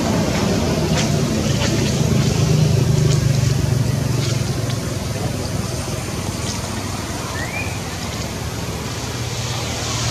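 An engine running with a steady low hum, strongest in the first half, easing off later and swelling again at the very end, over a constant hiss. Scattered faint clicks and one short chirp about three quarters of the way in.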